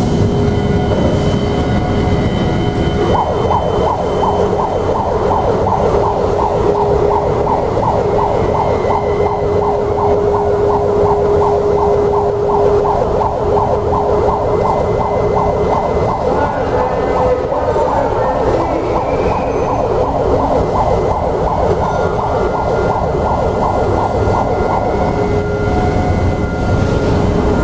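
A warbling warning siren repeating rapidly. It starts about three seconds in and stops near the end, over a steady low rumble.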